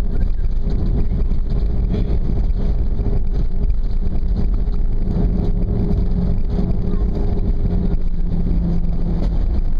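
Cabin noise of an Airbus airliner rolling out on the runway just after touchdown, ground spoilers up: a steady low rumble of engines, wheels and airflow with a faint humming tone.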